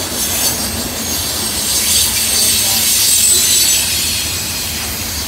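CSX freight train's container flatcars rolling past, wheels squealing in several high steady tones that grow louder around the middle, over a steady low rumble of the cars. The squeal is flange squeal from the wheels rubbing the rail on the curve.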